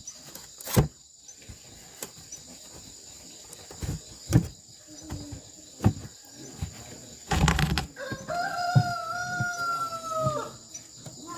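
A rooster crowing once, a long held call that sags in pitch and drops away at the end, starting about eight seconds in. Scattered sharp clicks and knocks come before it, with a short noisy rustle just before the crow.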